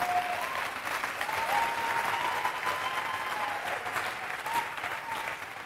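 Congregation applauding in response to a call to give praise, dying away near the end.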